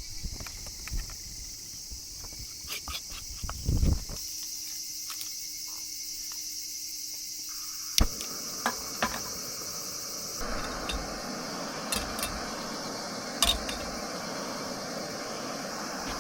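Steady high chirring of an insect chorus, with scattered clicks and knocks over it.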